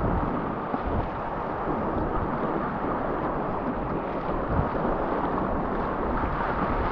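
Whitewater river at high flow rushing and churning around a kayak, heard close from the paddler's position, as a steady dense wash of water noise with uneven low rumbling thumps underneath.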